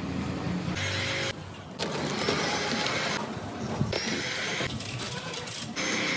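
Handheld electric heat gun blowing steadily while heating vinyl wrap film so it can be stretched over a motorcycle fuel tank. The blowing noise stops and starts abruptly a few times.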